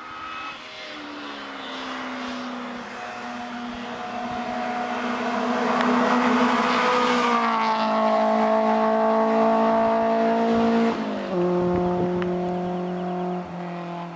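Honda S2000's high-revving F20C inline-four driving past under acceleration. The exhaust note grows louder over several seconds, drops sharply in pitch about eleven seconds in, then fades away.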